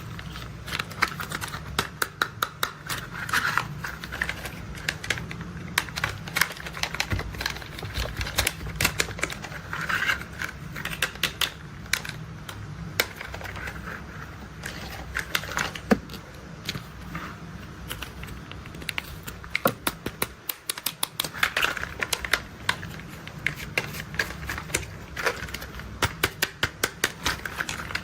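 Plastic toy construction vehicles being handled: rapid, irregular clicking and rattling of plastic parts and joints, in clusters, over a steady low hum.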